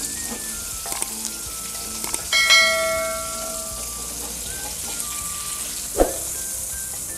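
Fish sizzling in hot oil in a frying pan while being turned and lifted with a spatula. About two seconds in, a single bright metallic ding rings out and fades over a second or so, and near the end there is one short knock.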